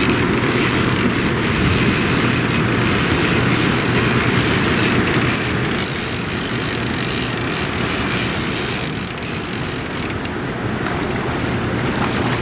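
Boat's outboard motor running steadily while trolling: a constant low hum under an even rushing noise.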